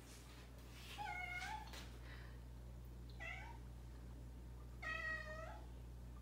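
A domestic cat meowing three times: a short call about a second in, a brief one at about three seconds, and a longer, louder one near five seconds, over a steady low hum.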